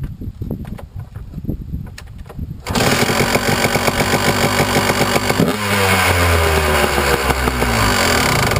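2006 Kawasaki KDX 200's two-stroke single-cylinder engine being kick-started: a couple of seconds of kicking and turning over, then it catches suddenly about three seconds in and runs at high revs, which fall away about halfway through as it settles down.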